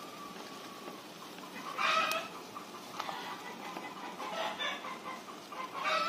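Chickens clucking: three short calls, about two seconds in, around four and a half seconds in, and again near the end, over a low steady hiss.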